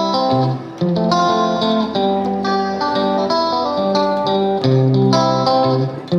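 Background music: guitar playing plucked notes and chords in a steady rhythm.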